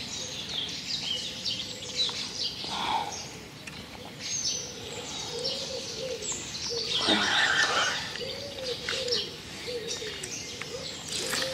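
Small birds singing, a steady stream of short chirps and trills, with a low cooing call repeated over and over from about five seconds in, typical of a dove. About seven seconds in there is a brief rush of noise as the feeder rod is cast.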